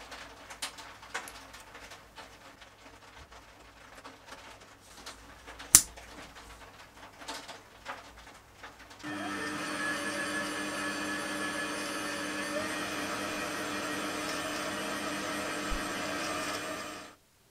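Small steel parts handled with light clicks and one sharp click. Then, about nine seconds in, a small metal lathe starts and runs steadily while a drill bores into the end of a steel shaft held in a chuck attachment. It stops suddenly shortly before the end.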